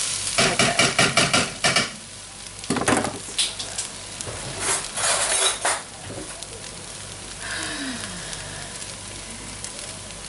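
Rice and vegetables sizzling in a frying pan while a utensil stirs and scrapes through them: a quick run of scraping strokes for about two seconds, a few more scattered strokes, then the pan settles to a steady, quieter sizzle.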